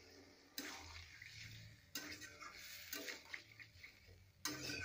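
Steel spatula stirring a watery curry in an iron kadai, with about four sloshing, scraping strokes through the liquid.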